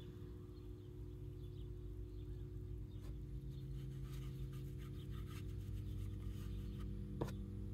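Steady low hum with faint scattered taps and one sharp click about seven seconds in.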